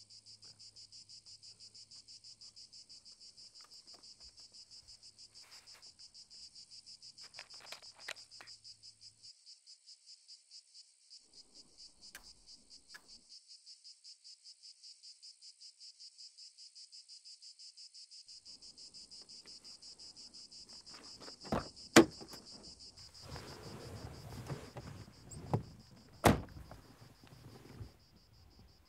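Crickets chirping in a steady, fast-pulsing high trill. In the last several seconds, rustling movement comes in, with two sharp clicks about four seconds apart.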